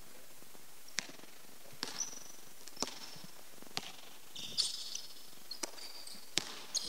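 A basketball bounced on a hardwood gym floor, sharp single bounces roughly once a second, with short sneaker squeaks on the court.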